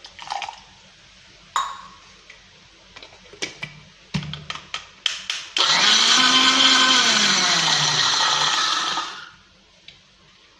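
Electric mixer grinder grinding grated coconut, green chillies, ginger and salted mango with a little water into chutney. A few knocks and clicks come first, then the motor runs loud and steady for about three and a half seconds, its pitch dropping before it stops.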